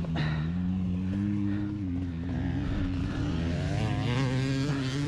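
Dirt bike engine running under throttle as the bike is ridden: the pitch climbs and holds, drops back about two seconds in, then climbs again with a wavering pitch.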